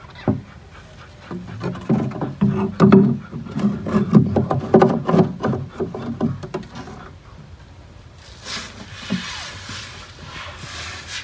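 A burst of knocks and scraping against a wooden box for several seconds, then a softer rustling near the end.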